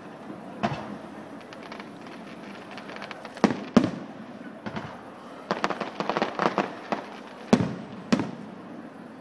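Aerial firework shells bursting with sharp bangs, one after another: two close together about three and a half seconds in, a quick run of crackling pops a little past halfway, and two more bangs near the end.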